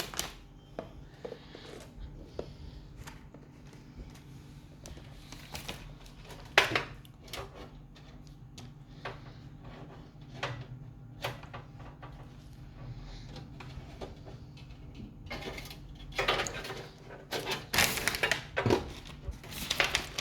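Scattered clicks, knocks and rustling from hands handling computer parts, with a denser run of clicking and rattling in the last few seconds, over a faint steady low hum.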